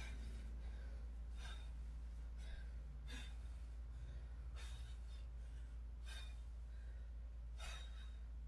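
A woman's heavy, rhythmic breathing during Russian twists: short forceful exhalations about once a second as she twists side to side, over a steady low hum.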